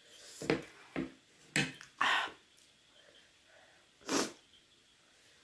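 A person sniffing and snorting several times in quick succession, then blowing her nose hard into a tissue about four seconds in; her nose is running from eating very hot, spicy noodles.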